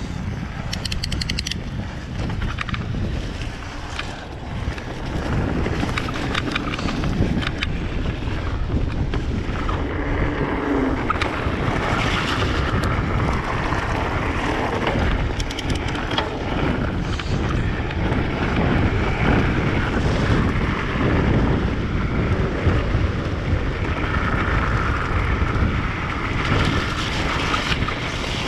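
Wind buffeting the camera microphone over the tyre rumble of a mountain bike riding down a muddy dirt trail, with scattered clicks and knocks from the bike over bumps.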